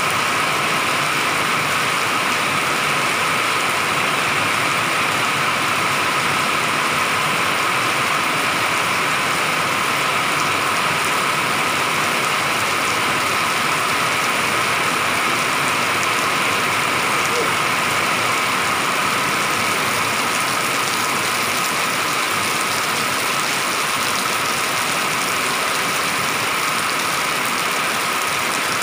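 Heavy rain pouring down onto a paved street, an even, unbroken hiss.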